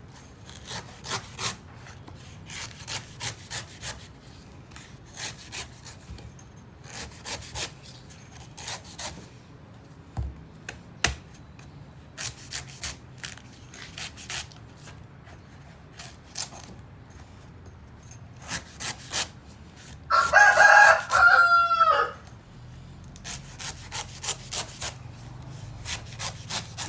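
Hand file rasping on steel in runs of quick back-and-forth strokes, a few strokes a second, with short pauses between runs. About twenty seconds in, a rooster crows once, the loudest sound, its call falling in pitch at the end.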